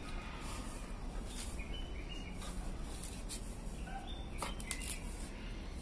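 Labrador pulling and tearing at a coconut's coir husk with its teeth, giving a few sharp clicks. Short high chirps sound in the background.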